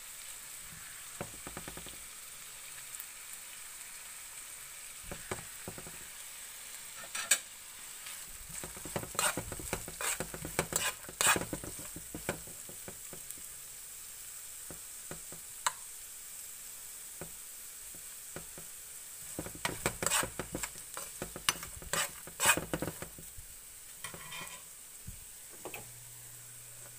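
Julienned carrots, sliced red onion and hot dog slices sizzling in oil in a frying pan with a steady faint hiss. A metal spoon stirs them, scraping and clacking against the pan in two spells, one a few seconds in and another later on.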